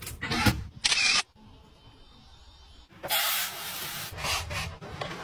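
A few clattering knocks in the first second, a quiet pause, then from about three seconds in a steady rushing hiss of rice grains pouring from a push-button rice dispenser into a glass bowl.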